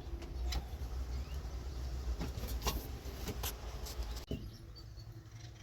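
Faint scattered clicks and knocks of hands handling the old truck's pull-out light switch under the dash, over a low steady rumble.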